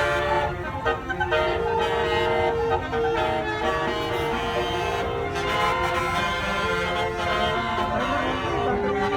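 A bus's basuri telolet multi-tone horn playing a tune as a string of held, reedy notes. A steady low rumble of vehicle traffic runs beneath it.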